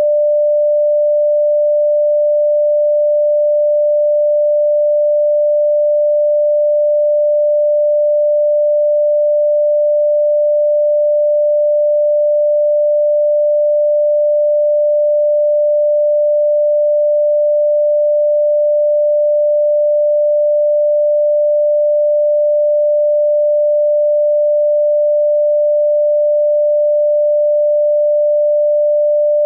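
A single steady, mid-pitched pure electronic tone, a plain sine wave held at one pitch and level without any change.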